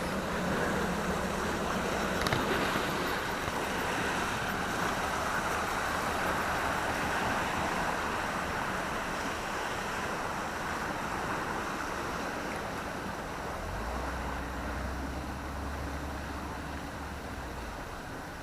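Water at the canal locks rushing steadily, easing off gradually over the stretch. A low hum joins in for a few seconds near the end.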